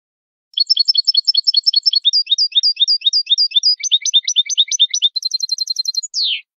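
European goldfinch singing a bout of malagueño-style song, the kind used on recordings to teach captive finches: fast trills of repeated high notes that change pattern three or four times, ending on a short falling note.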